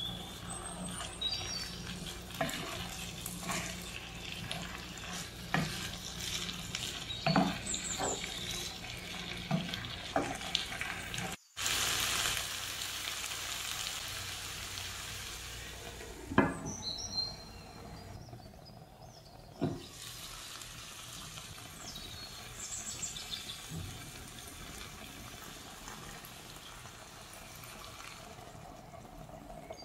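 Wooden spatula stirring chicken and mixed vegetables in a stone-coated non-stick pan, with repeated scrapes and knocks against the pan over the sizzle of frying food. After a cut about 11 seconds in, the food sizzles more steadily, with a couple of single knocks.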